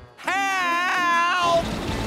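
A cartoon man's high-pitched panicked scream, scooping up at the start and falling away after just over a second.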